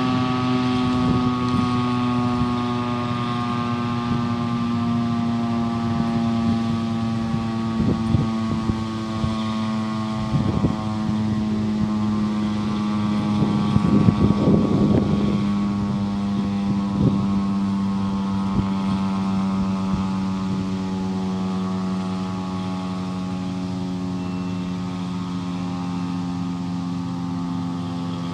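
Federal Signal STH-10 dual-tone electromechanical siren sounding a steady chord, its pitch slowly sinking as it winds down. A few short gusts of rumbling noise are heard in the middle.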